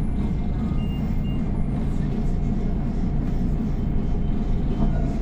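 Diesel engine and road noise of a Higer KLQ6129GQ2 city bus, heard from inside the passenger cabin while it drives, steady and low.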